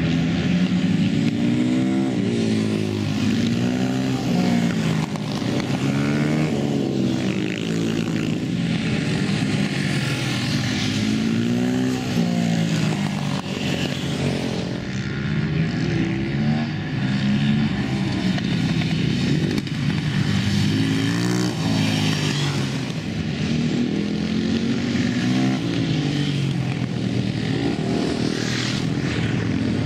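Supermoto motorcycle engines revving up and falling back again and again, every couple of seconds, as the bikes accelerate and brake through coned corners.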